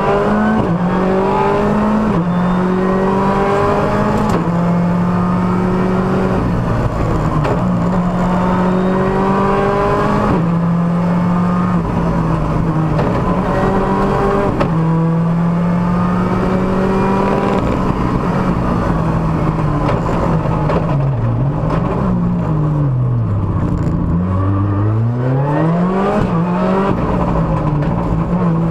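Ford Fiesta R5 rally car's 1.6-litre turbocharged four-cylinder engine at full throttle, heard from inside the cabin, revving up through a quick series of gear changes. About three-quarters of the way through the revs drop sharply and climb again twice as the driver lifts off and gets back on the power.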